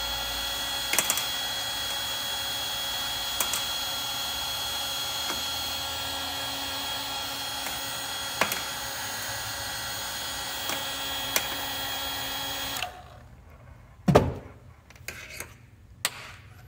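Cordless heat gun running steadily, its fan whirring with a fixed whine, as it shrinks heat-shrink tubing over a probe wire. It switches off about 13 seconds in, followed by a sharp thump and a few small handling knocks.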